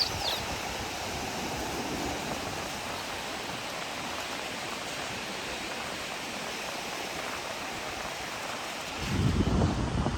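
Steady hiss of ocean surf washing on the beach. A bird chirps right at the start, and about nine seconds in a low rumble of wind buffeting the microphone comes in.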